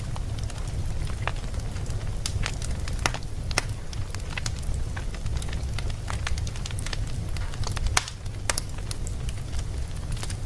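Wood fire burning in a fireplace: a steady low rumble of flames with frequent irregular crackles and pops, one sharper pop about eight seconds in.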